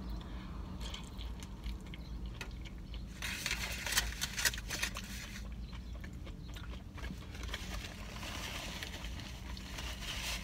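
Close-up eating sounds: biting into and chewing a breakfast burrito, with mouth clicks. A burst of crisp, crackly noise with two sharp clicks comes a few seconds in, and a paper napkin rustles near the end, over a steady low hum.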